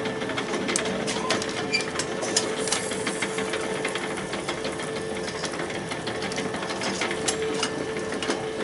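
Electric rotisserie motor running with a steady hum as its spits turn, with scattered metal clicks and clinks as the skewers are slotted into the turning spit head.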